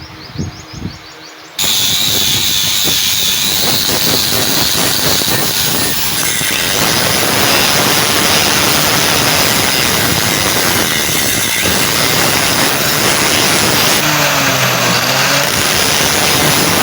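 Electric power tool grinding or sanding a steel knife blade: a few light knocks, then a loud steady grinding noise that starts abruptly about a second and a half in.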